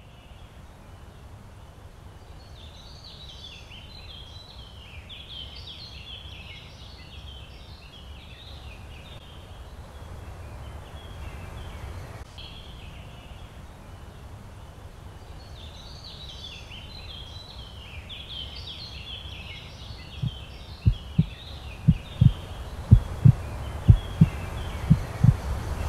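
Birds twittering in two long spells over a low rumbling drone that slowly grows louder. About twenty seconds in, a heartbeat sets in, regular double beats about twice a second, and becomes the loudest sound.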